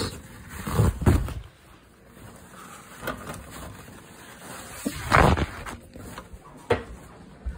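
A wooden kitchen cabinet being opened and rummaged through, with handling bumps and rustles: a few sudden knocks, the loudest about a second in and about five seconds in.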